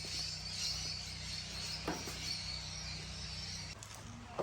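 Quiet background ambience: a steady high-pitched chirring of insects over a low hum, with a faint click about two seconds in.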